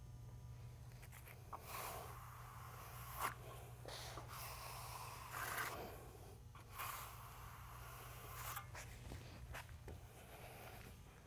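Faint scraping strokes of a steel trowel against a wooden board, several rough swishes a second or two long, over a steady low hum.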